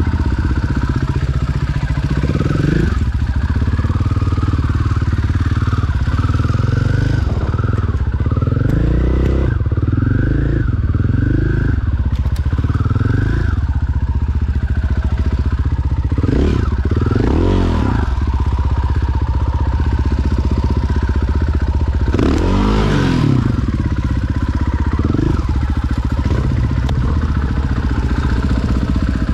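Enduro dirt bike engine ridden at low speed over rough trail, heard up close from the rider. The engine revs rise and fall over and over as the throttle is blipped, with a few sharper revs about 16–18 s and 22–23 s in.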